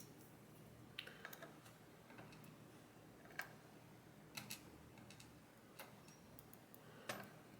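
Faint, scattered light clicks of small metal lock pins and parts being handled while a U-Shin Showa NX lock is taken apart, about six ticks spread over several seconds against near silence.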